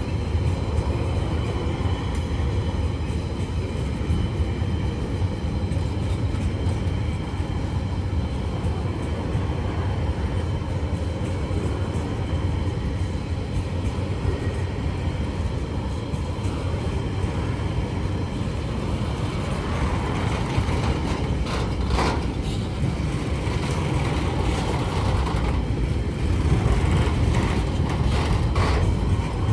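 Tasrail freight train's container wagons rolling past: a steady low rumble of wheels on rail, with a few sharp clicks over the last third.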